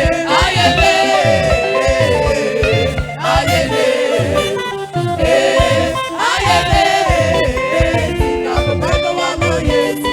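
Live gospel praise music: a band playing with a steady drum beat under held, gently bending melody lines, with singing.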